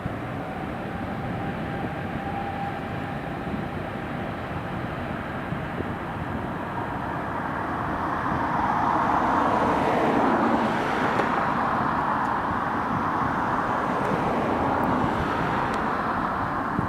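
Jet airliner flying past, its sound swelling to a peak about ten seconds in and then easing off, with sweeping changes in its tone as it goes by. Steady wind and road traffic noise run underneath.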